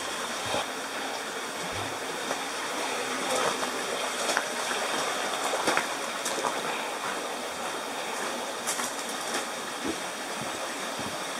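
Steady rush of flowing water, with a few faint clicks scattered through it.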